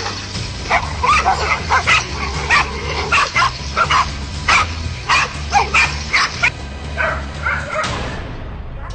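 Several dogs barking rapidly and excitedly as they attack a large snake, short sharp barks and yips several times a second. A steady low hum runs underneath and stops near the end.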